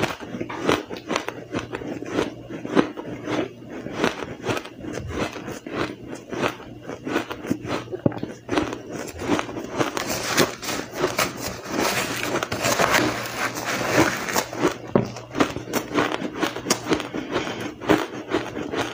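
Powdery blender-crushed ice being bitten and chewed close to the mouth: a dense run of crisp crunches and crackles, thickest about ten to fourteen seconds in.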